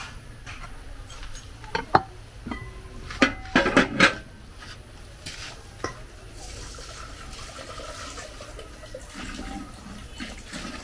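Kitchen knife knocking on a wooden cutting board while chopping okra: a couple of sharp knocks about two seconds in, then a quick cluster of louder ones, some with a slight metallic ring.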